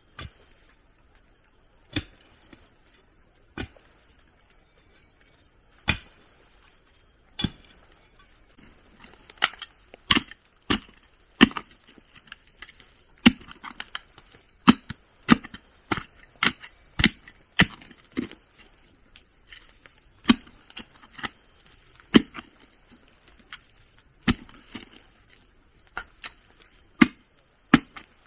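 Wood being chopped with a blade, in sharp single strokes. They come a second or two apart at first, then quicker, about one or two a second, from about a third of the way in.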